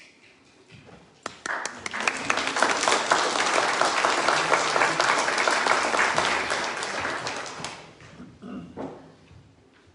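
A small congregation applauding. The clapping starts about a second in, holds for several seconds and dies away near the end.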